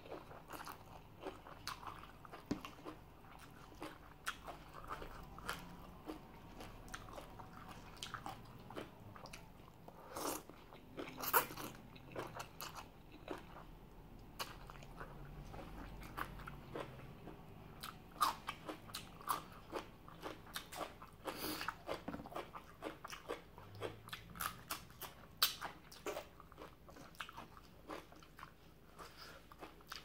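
A person chewing and biting into crunchy food, papaya salad with mixed seafood, with irregular wet crunches and clicks throughout and a few louder crunches scattered through.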